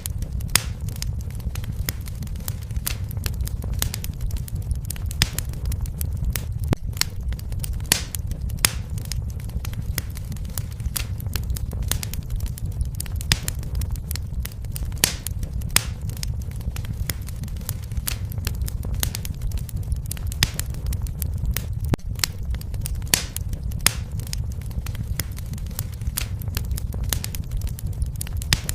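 Wood fire burning, with a steady low rumble and frequent sharp, irregular crackles and pops.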